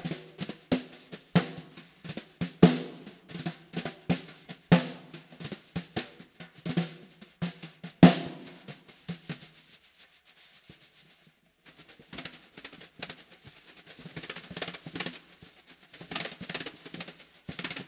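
Snare drum with a burnished brass shell played solo: a run of sharp strokes with a ringing tone, the loudest about eight seconds in. After a short pause, softer, quicker strokes follow.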